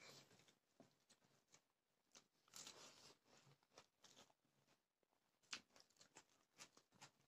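Faint eating sounds of a person eating a rice meal: chewing and crunching, with scattered light clicks and one longer crunchy stretch near the middle.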